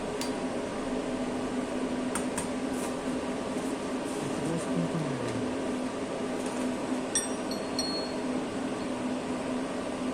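Steady hum of a CNC lathe standing at idle, with a constant low tone. A few light clicks come about two seconds in, and a short run of high electronic beeps about seven seconds in.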